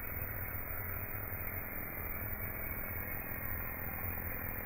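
Oscillating-knife CNC cutting machine running as it cuts thick foam: a steady low hum under even machine noise.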